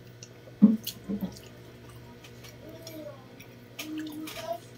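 Mouth and hand sounds of eating with the fingers: wet lip smacks and chewing, with a sharp smack a little over half a second in and a few softer ones after, over a steady low hum.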